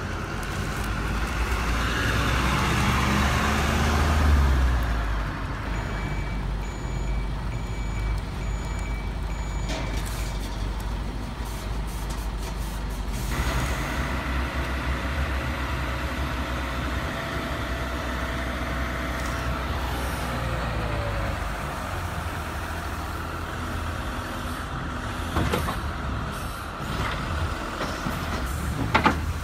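Heavy truck engine sound running steadily with a low rumble, swelling over the first few seconds. From about six to ten seconds in, a high intermittent beeping is heard over it.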